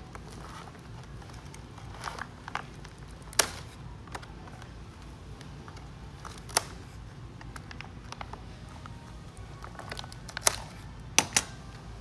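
Foil packaging bag crinkling and a utility knife cutting through the tray's straps. Scattered sharp clicks and rustles come several seconds apart over a low steady room hum.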